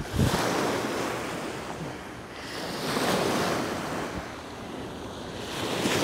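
Small sea waves breaking and washing up onto a pebble beach, the wash swelling and fading about every three seconds, with some wind on the microphone.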